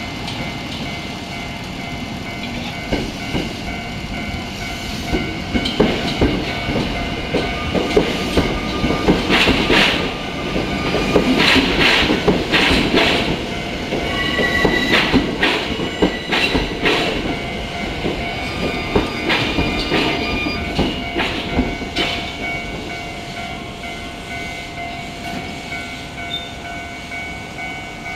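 Tokyo Metro Ginza Line 01 series third-rail train passing slowly over a level crossing, its chopper-controlled motors whining as it brakes or pulls away, with wheels clacking over the rail joints. The passing is loudest from about 5 to 22 seconds in and fades after. The level-crossing warning bell keeps ringing throughout.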